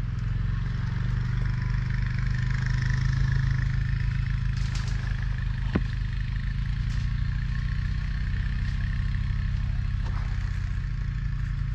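A motor engine running at a steady low hum, with a single sharp click about six seconds in.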